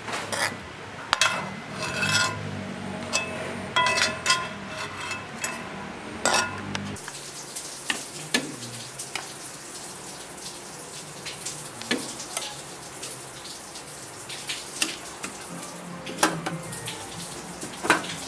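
Metal spoon stirring and scooping cooked white rice in an aluminium pot, clinking and scraping against the pot's side and rim. The clinks come thick and fast for the first several seconds, then turn sparser.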